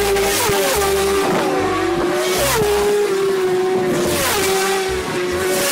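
Racing motorcycles at full throttle on a road, engines revving high, the pitch dropping sharply at each gear change several times over.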